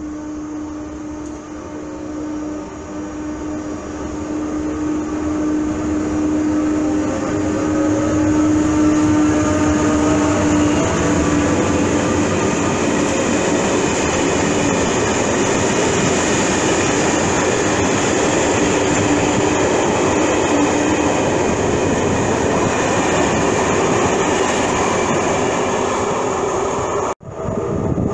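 Electric locomotive hauling passenger coaches past at close range: first a steady hum with faint rising whines as it draws in, then a louder, even rush of the coaches' wheels on the rails. The sound drops out briefly about a second before the end and comes back.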